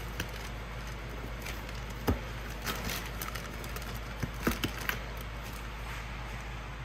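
A hand handling a cardboard box, giving scattered light knocks, taps and scrapes, the loudest about two seconds in, over a steady low background.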